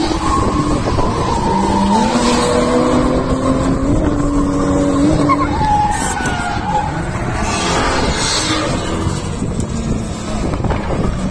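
BMW 3 Series drift car's engine held high in the revs, its pitch stepping up and down as the throttle is worked, with tyres squealing as the car slides sideways.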